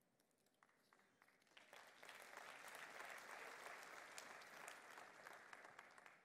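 Audience applauding, faint: a few scattered claps at first swell into steady applause about two seconds in, then die away near the end.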